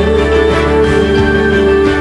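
Instrumental music with long held notes over a steady low bass.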